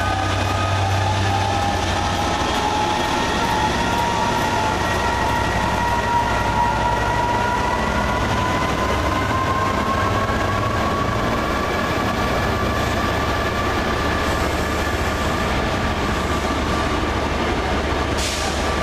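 A Class 67 diesel-electric locomotive with a GM two-stroke V12 is hauling Mk3 coaches away from the platform. A steady low engine drone sits under a whine that rises slowly as the train gathers speed, with the coaches rolling past close by.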